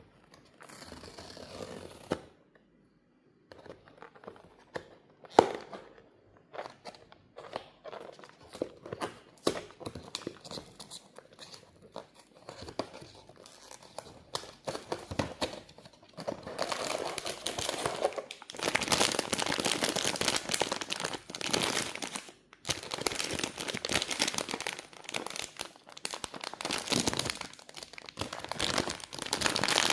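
Packaging being handled and unwrapped by hand: scattered clicks and rustles at first, then steady, loud crinkling and tearing through the second half, with a brief pause partway through.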